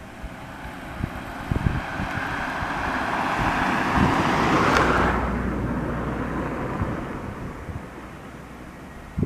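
Jet airliner flying past: its engine noise builds to a peak about five seconds in, loses its upper hiss suddenly as it passes, then fades. Gusts of wind buffet the microphone.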